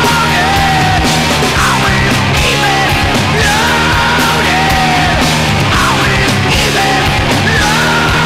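Loud rock music with a dense full-band sound and a wavering lead line over it.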